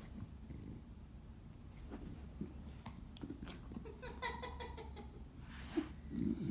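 Chow Chow gnawing a chew with soft scattered clicks, then a short high whine that falls slightly in pitch about four seconds in, and a louder low snuffling sound near the end.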